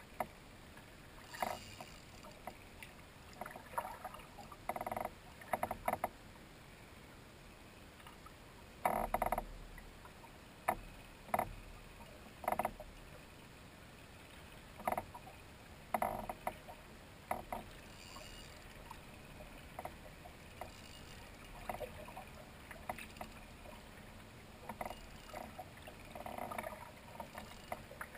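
Water lapping and slapping against a sit-on-top kayak hull as it drifts: irregular short splashes and the odd knock over a steady quiet hiss.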